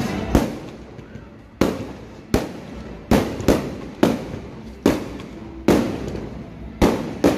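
Aerial fireworks shells bursting one after another, about ten sharp booms at uneven intervals, each trailing off in a short fading echo.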